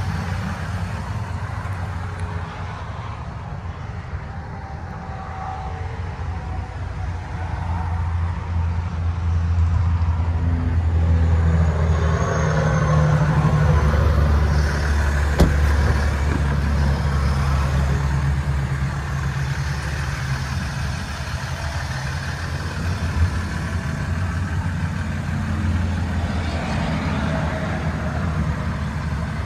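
Ram 1500's 3.0-litre EcoDiesel V6 turbodiesel idling with a steady low hum, a little louder around the middle, and a single sharp click about halfway through.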